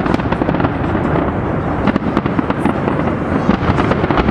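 Large fireworks display: dense, continuous crackling and popping of many shells bursting close together, over a steady rumble.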